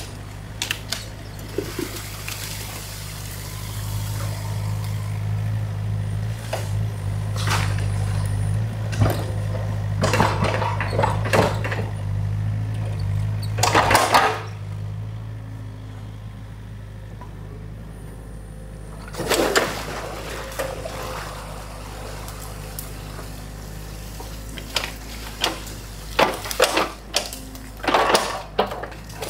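New Holland mini excavator's diesel engine running steadily while its bucket works a beaver dam of sticks and mud. Repeated loud knocks and cracks of the bucket and branches come in clusters, with stream water running over the dam.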